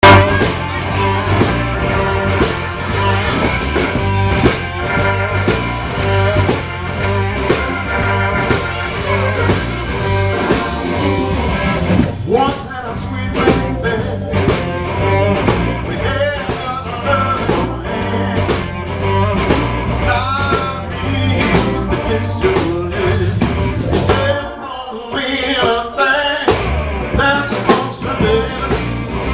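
Blues band playing live: electric guitar over a steady bass and drum groove. The bass and drums drop out for a couple of seconds about 25 seconds in, then come back.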